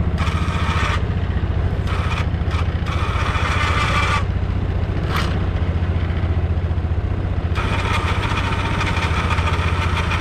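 12 V 3000 lb electric winch on the front of an ATV paying out its rope in several bursts as its remote is pressed, the motor and gears whining each time. Underneath, the ATV's water-cooled 350 cc engine idles steadily.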